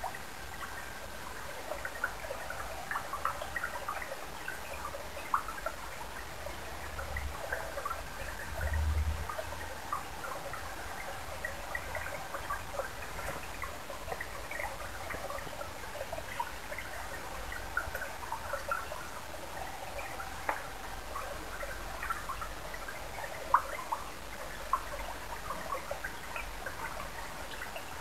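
Shallow stream water trickling over stones, with many small scattered drips and plinks. A brief low rumble comes about nine seconds in.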